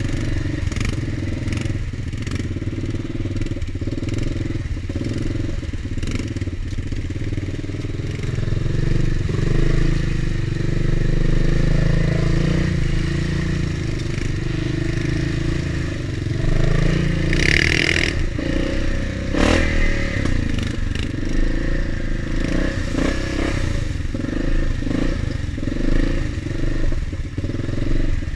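ATV engine running as the quad rides through flooded trail water, pulling harder from about eight seconds in. A single sharp knock comes a little past halfway.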